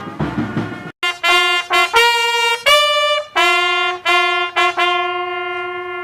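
Solo bugle call at a military funeral: a few separate held notes stepping between the bugle's few pitches, the last one long and slowly fading. Band music with drums stops just before it, about a second in.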